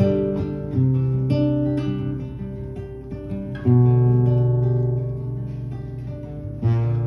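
Acoustic guitar playing an instrumental passage between sung verses: ringing chords struck about once every three seconds, with single notes picked in between.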